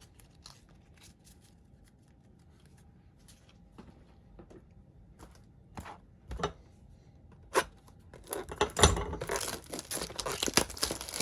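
A few faint clicks of cards being handled, then about eight seconds in, the plastic wrapping of Topps trading card packaging is torn open and crinkled loudly.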